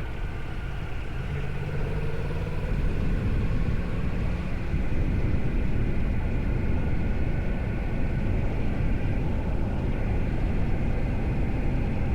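Yamaha MT-10's inline-four on its stock exhaust running at steady road speed, fairly quiet and mostly buried under constant wind rush on the microphone; a faint engine hum shows through in the first few seconds.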